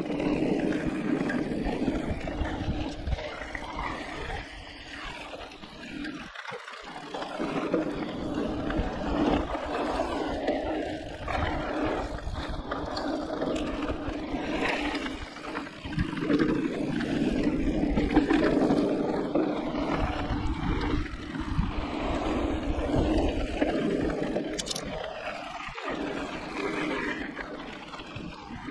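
Riding noise from an e-mountain bike on a dirt flow trail: tyres rolling over packed dirt and loose ground, with wind rushing over the bike-mounted camera's microphone and a steady low hum. The noise swells and eases with speed through the turns.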